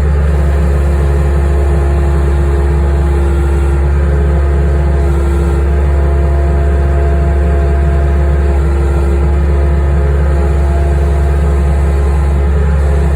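Skid steer engine running steadily at constant speed, with a steady whine over the low engine sound.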